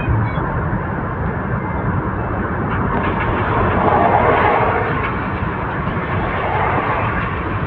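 Steady engine and road noise of a moving vehicle, swelling a little near the middle.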